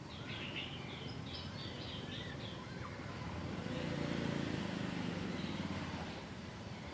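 Birds chirping and twittering in short high calls for the first two or three seconds, over a steady low background hum; a low rumble swells around four seconds in and fades again.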